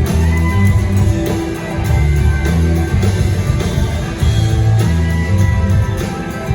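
Live band playing an instrumental passage of an outlaw-country song: electric guitar over bass and drums, with no vocals.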